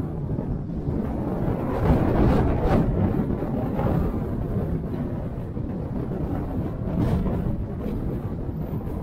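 Car being driven: low rumble of the road and engine with wind buffeting the microphone, rising and falling unevenly.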